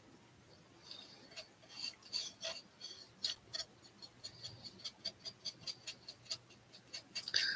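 Faint, quick scratchy ticks of a small paintbrush stroking paint onto a model aircraft's wing, about three a second, with a quicker flurry near the end.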